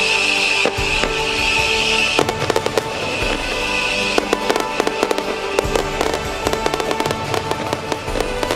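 Fireworks display: a high hiss for the first two seconds, then many rapid bangs and crackles from about two seconds in, with music playing underneath.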